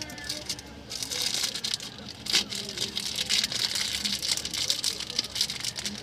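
Clear plastic wrapping crinkling and rustling as it is handled and pulled off a new part by hand.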